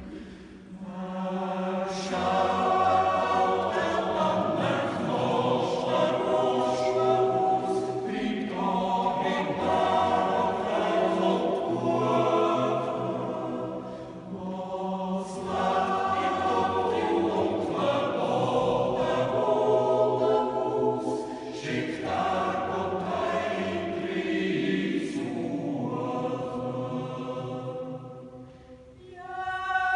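Swiss yodel club choir of men's voices with two women singing a cappella. The voices hold sustained chords phrase by phrase, with short breaks between the phrases.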